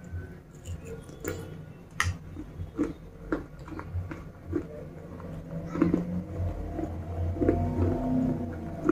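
A person chewing a mouthful of broken slate pieces coated in red clay paste close to the microphone, with irregular crisp crunches that come thicker and louder in the second half.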